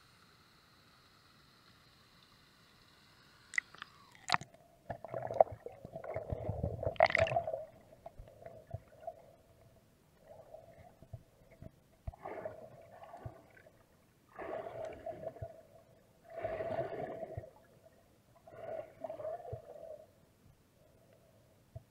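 Sound of river water heard through a submerged action camera: after a few clicks about four seconds in, the camera is underwater, picking up muffled gurgling and bubbling that comes in bursts of about a second, every two seconds or so.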